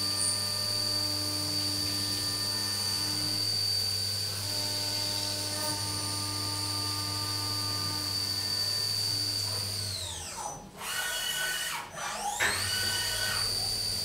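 CNC vertical mill spindle turning at 6000 rpm with its cutter in the work under flood coolant: a steady high-pitched whine over a low hum and coolant hiss. About ten seconds in the whine falls away as the spindle slows, and about two seconds later it glides back up as the spindle spins up again, around a tool change from the end mill to a chamfer mill.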